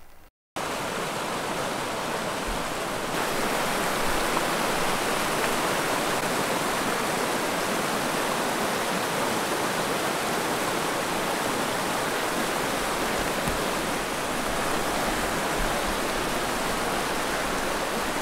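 Flash-flood runoff rushing down a creek channel, a steady, loud rush of water, swollen by about half an inch of rain falling in 15–20 minutes.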